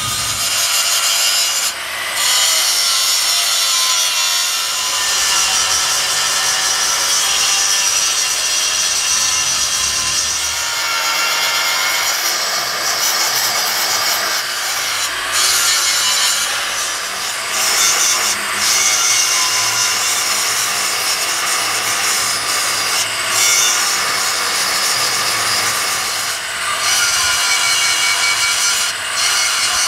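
Angle grinder with an abrasive disc grinding the teeth of a large metal gear, running steadily with a few brief dips where the disc eases off the work.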